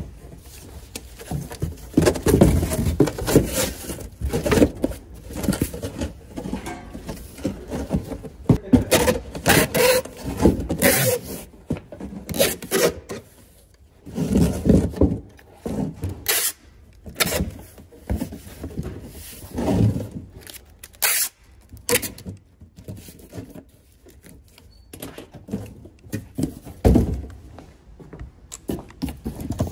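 Cardboard boxes being handled and shifted, with irregular rubbing and scraping of cardboard and a few sharp knocks.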